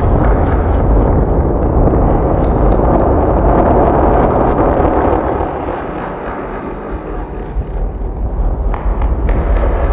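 Experimental soundscape of dense rumbling noise with a deep low drone. It thickens in the middle, thins out for a couple of seconds past the middle, then swells again with a few sharp clicks near the end.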